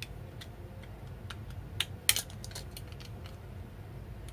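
A quick run of small metallic clicks and clinks, the sharpest just after two seconds in, from the parts of a Walther PPK/S CO2 blowback airgun being handled during fitting of its CO2 locking screw.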